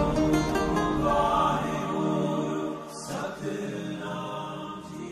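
Background music with long held tones, growing quieter from about three seconds in and fading out at the end.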